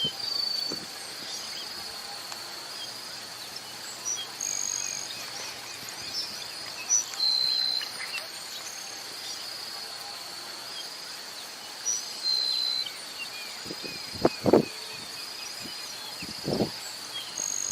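Grassland sparrow singing short, thin, high-pitched phrases, one every few seconds, over a steady high insect drone. A few dull low thumps come near the end.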